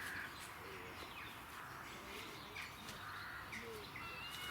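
Scattered short bird calls, faint, with crow-like caws among them.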